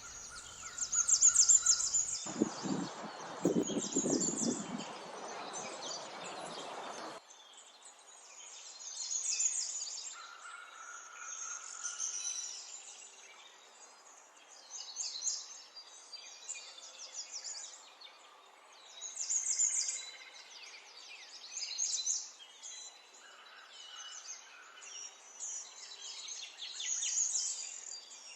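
Small songbirds chirping and twittering in repeated high bursts. From about two seconds in, a loud rush of low noise covers them and cuts off suddenly around seven seconds.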